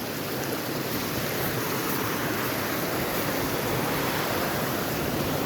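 Fast-flowing river water rushing over rocks, a steady hiss that grows a little louder over the first couple of seconds.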